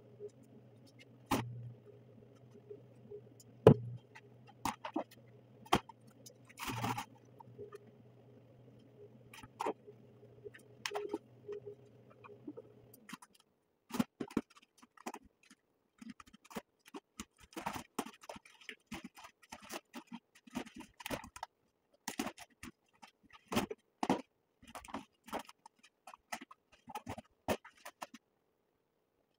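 A large sheet of satin vinyl wrap film being handled and pressed onto a truck door by hand: scattered crinkles, taps and rustles, coming thicker in the second half. A low steady hum sits underneath and stops about 13 seconds in.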